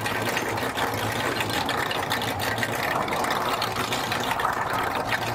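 A 150 hp Mercury outboard motor on a bass boat running steadily at idle as the boat moves slowly through the water.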